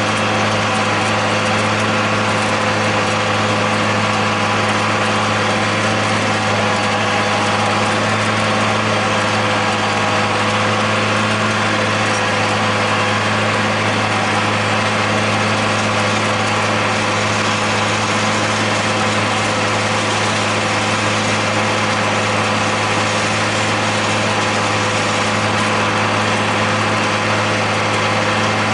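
Steady drone of a John Deere 8100 tractor's six-cylinder diesel engine working at even revs while mowing hay with a John Deere 946 discbine, heard from inside the cab.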